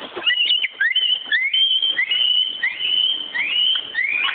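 A run of about six rising whistles. Each sweeps upward and then holds a high note for a moment.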